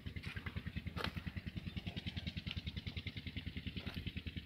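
Belarus 510 tractor's diesel engine idling, a steady low beat of about ten pulses a second.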